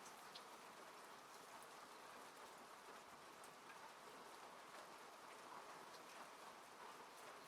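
Soft, steady rain on a car's roof and windows, heard from inside the car, with scattered individual drops ticking.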